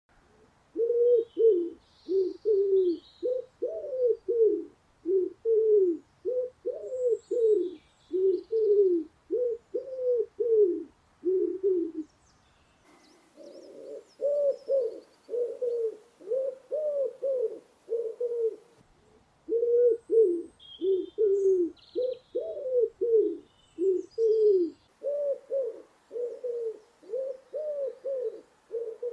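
Dove cooing: a long series of short, low coos at about two a second, with a brief pause about twelve seconds in. Faint chirps of small birds sound above it.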